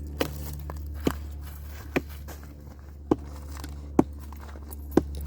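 Sharp, evenly spaced taps or clicks, about one a second, over a steady low hum.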